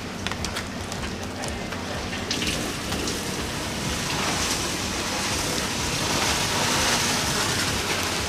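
Sand being poured into an empty reef aquarium: a steady pattering hiss of falling grains. A few light clicks come in the first two seconds, and the hiss grows louder from about two and a half seconds in.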